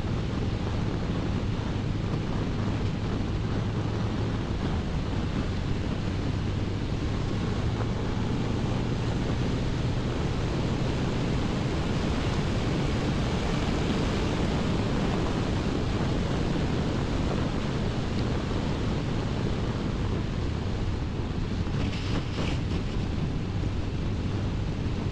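Wind rushing steadily over the microphone of a Honda CBR1100XX Blackbird motorcycle at cruising speed, with the inline-four engine's low, steady hum underneath that fades about halfway through.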